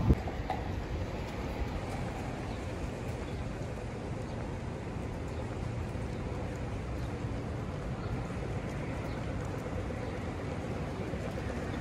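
Steady low rumble of city street noise with a faint steady hum, and a brief knock right at the start.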